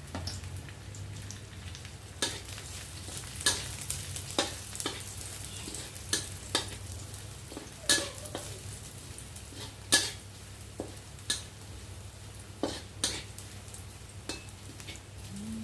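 Stir-frying in a pan: a metal spatula knocks and scrapes against the pan at irregular intervals, about a dozen sharp clicks, over a light sizzle and a steady low hum.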